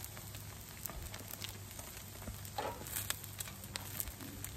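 Eggs frying in oil on a Blackstone 28-inch steel griddle top: a steady sizzle with many small scattered pops and crackles.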